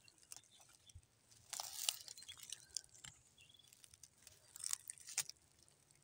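Soft crackling and rustling of dry leaves, twigs and plant stems on the forest floor as wild violets are picked by hand, with scattered short snaps, the loudest cluster about a second and a half in.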